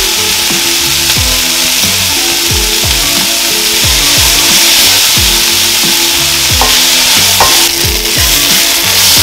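Sliced onions sizzling loudly in hot oil in a pan as they are stirred with a spatula, a steady frying hiss. A background music beat with low thumps about twice a second runs underneath.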